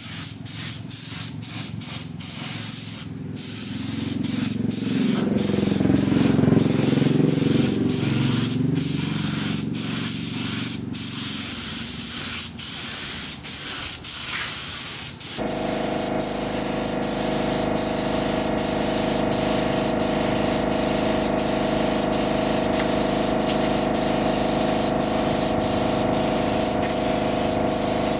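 Air spray gun hissing in long bursts with brief breaks, as when spray-painting machine parts. About halfway through, a steady machine hum starts underneath and keeps going.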